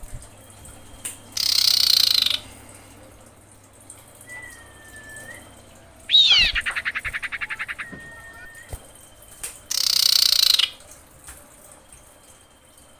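Female common iora calling: two harsh, rasping calls about a second long, thin whistled notes, and a sharp downswept note about 6 s in that runs into a fast rattling trill lasting nearly two seconds.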